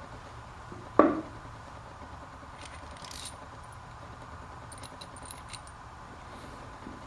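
A sharp metallic knock about a second in, then two short runs of light clinks and jingles from small metal hardware, a hollow bolt with its washers and spacer, being handled.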